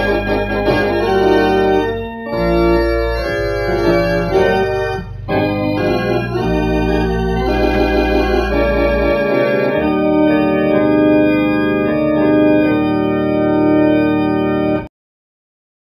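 Organ playing a slow passage of held chords over deep bass notes, cutting off abruptly near the end.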